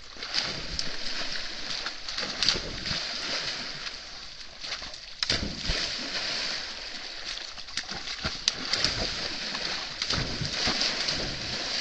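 Wild boar splashing through shallow river water: continuous sloshing, broken by irregular sharper splashes, the loudest about two and a half, five and eight and a half seconds in.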